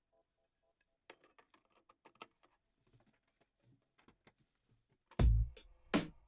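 Faint, irregular clicks and ticks, then loud music with a heavy bass beat starts suddenly about five seconds in.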